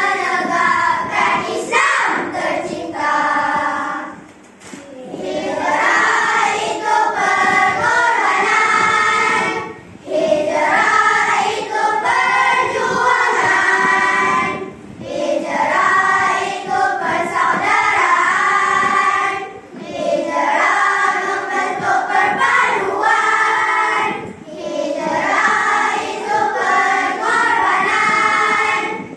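A group of young boys and girls singing a Malay nasyid together, in sung phrases of a few seconds with short breaks between lines.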